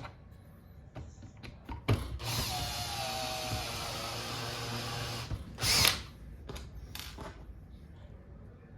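A power drill-driver running steadily for about three seconds, with scattered clicks and knocks around it. Just after it stops comes a short, louder burst, the loudest sound here.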